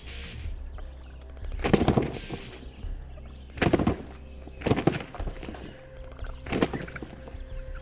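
Wild turkey gobblers gobbling, four loud gobbles about one to two seconds apart, with soft background music under them.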